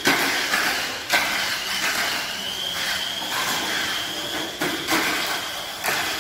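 A Tamiya Mini 4WD Sunny Shuttle on an AR chassis with its stock motor, running laps on a plastic track: a steady high motor and gear whine, broken by a few sharp clacks from the plastic track.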